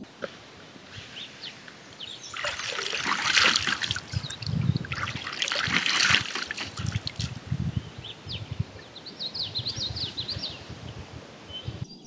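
Lake water scooped up in cupped hands and splashed onto a face twice, each splash followed by water dribbling from the hands back into the lake, then a run of small drips and trickles.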